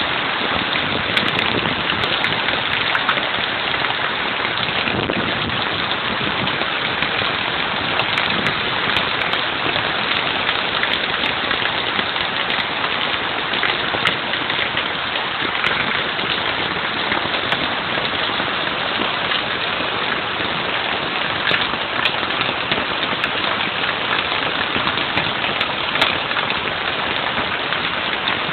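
Heavy storm rain pouring steadily, with scattered sharp ticks of impacts on hard surfaces.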